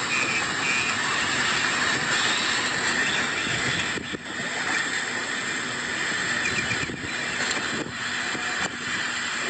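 Severe thunderstorm wind and heavy driving rain, a steady rushing noise with a few brief dips.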